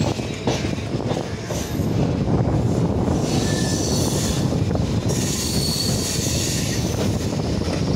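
A MEMU electric train running through a rail yard, heard from aboard. Its wheels rumble steadily on the rails and get louder about two seconds in, and the wheel flanges squeal briefly on curves and points a couple of times.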